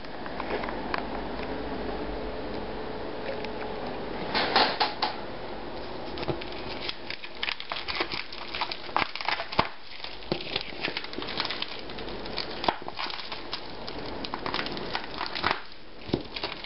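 Black plastic wrapping and packing tape being pulled and torn off a parcel by hand: irregular crinkling and crackling that thickens into a dense run of crackles in the second half.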